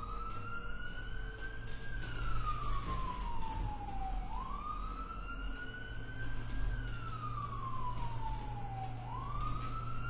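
Wailing siren sound effect: one tone sweeps quickly up, climbs slowly to its highest pitch, then glides down again, repeating about every four and a half seconds. A steady low hum runs underneath.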